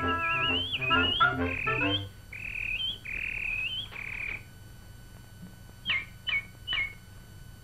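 Cartoon canary sound effect: two long, high, wavering warbles, then after a pause three short chirps, each falling in pitch. Band music plays for the first two seconds and then stops.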